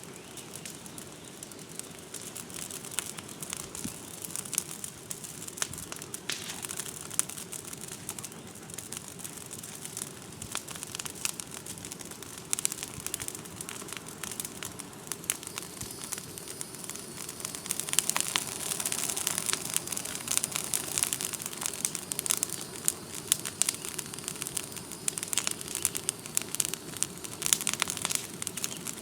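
Brush-pile fire of oak branches and vines burning, with a steady hiss and many sharp crackles and pops that grow denser and louder about two-thirds of the way through.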